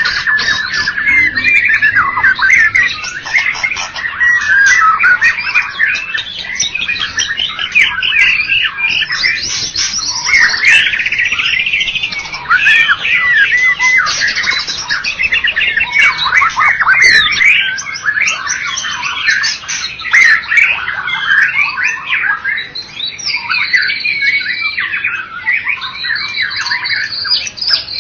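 White-rumped shama singing a long, unbroken song of rapidly changing whistled phrases and fast trills.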